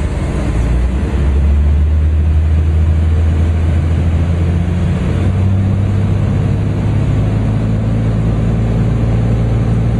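Cessna 400 Corvallis's turbocharged Continental TSIO-550 six-cylinder engine and propeller, heard inside the cabin, coming up to takeoff power. The engine sound swells about a second in, and its note steps higher about five seconds in.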